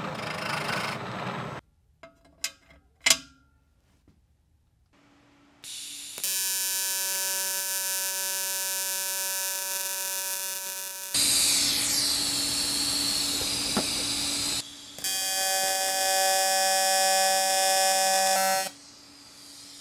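An annular cutter on a milling machine cutting through a crash beam for about the first second and a half, then a few clicks. About six seconds in, a TIG welding arc starts with a steady electric buzz full of even overtones. A harsher hiss joins it for a few seconds midway, the arc breaks off briefly, then resumes and stops near the end.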